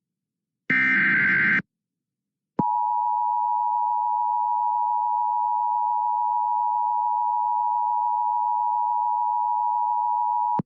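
Emergency Alert System broadcast: the last screeching burst of the digital SAME header, then a second of silence, then the EAS two-tone attention signal (853 Hz and 960 Hz sounded together) held steady for about eight seconds and cut off abruptly. It signals an urgent warning, a severe thunderstorm warning, about to be read.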